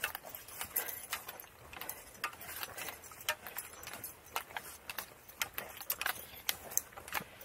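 Hiker walking a forest trail with a loaded backpack: footsteps and pack gear rattling and clinking with each stride, a quick irregular run of sharp clicks.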